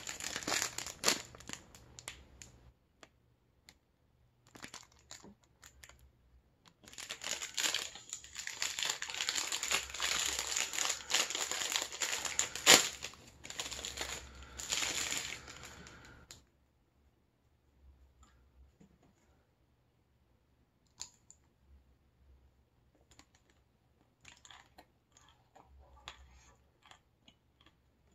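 A plastic snack wrapper crinkling and tearing as it is handled and peeled open around a chocolate-coated bar, in spells of loud crackling that stop about sixteen seconds in. After that there are only faint scattered clicks.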